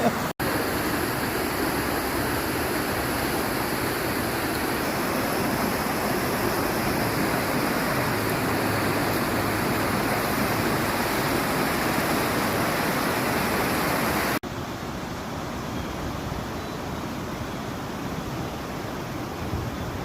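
Steady rushing noise with no distinct events, dropping suddenly to a quieter, duller rush about two-thirds of the way through.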